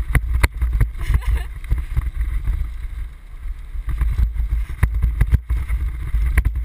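Low rumbling buffeting with many scattered clicks and knocks, the movement and wind noise of a helmet-mounted action camera in its housing.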